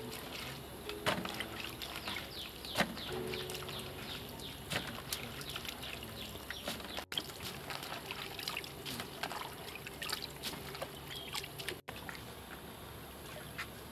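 Cauliflower florets being washed by hand in a basin of water: water splashing and trickling as handfuls are swished, squeezed and lifted out dripping.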